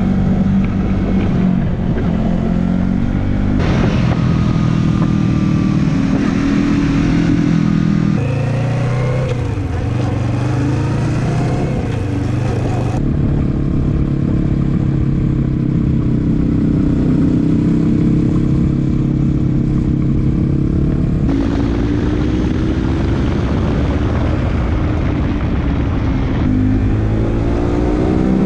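A 2020 Yamaha MT-03's 321cc twin-cylinder engine running under way, its note rising and falling as the bike accelerates, eases off and shifts. The sound changes abruptly several times where the footage cuts between camera mounts.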